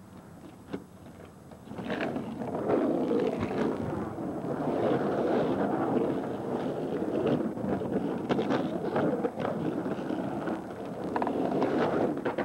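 Skateboard wheels rolling on the rough concrete of an empty swimming pool: a steady rumble that starts about two seconds in and swells and eases as the board carves, with a few sharp clacks from the board.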